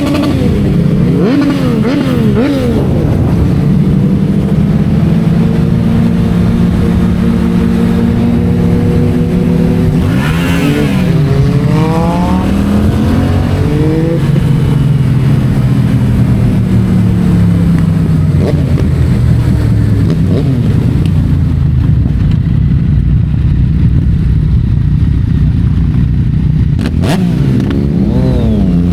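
Yamaha MT-07's parallel-twin engine running through an Akrapovic titanium exhaust while riding at a steady pace, its note rising as the revs climb around the middle of the stretch and again near the end.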